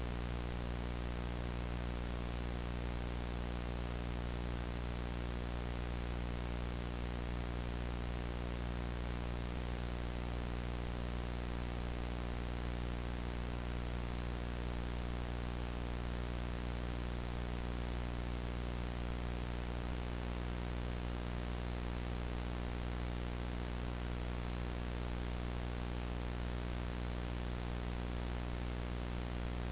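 VHS static: steady analog tape hiss over a constant low hum with a buzzy series of overtones, unchanging throughout.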